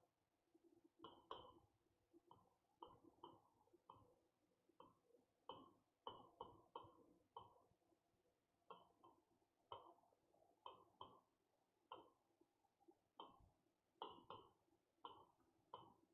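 Faint, irregular taps and short scratches of handwriting on a board, roughly two strokes a second, with a pause of about a second some eight seconds in.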